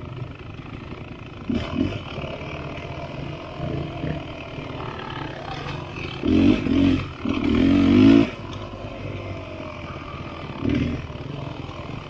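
Dirt bike engine running at low speed on a rough trail, with several bursts of throttle, the loudest about six to eight seconds in.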